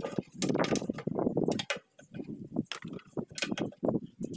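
Irregular metal knocks and clinks as the steel hub and bearing parts of a kuliglig hand tractor's axle housing are handled and worked loose during disassembly.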